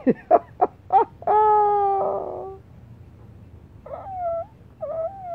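An animal's calls: about five short yelps falling in pitch, then one long wail, then two shorter wavering calls near the end.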